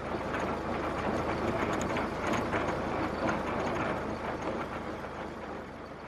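Farm machinery driven off a tractor's PTO shaft running with a busy mechanical clatter of many small rattles and knocks, fading away over the last couple of seconds.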